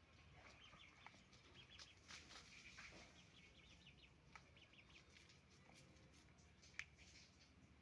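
Chickens making faint, rapid short calls and peeps, with one sharper, louder call or click near the end.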